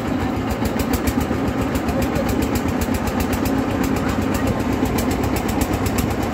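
Ferry boat's engine running steadily with an even, rapid knock, several beats a second.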